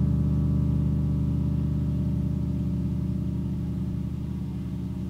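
Low electronic synthesizer drone of several held tones stacked together, with a fine rapid flutter, slowly fading.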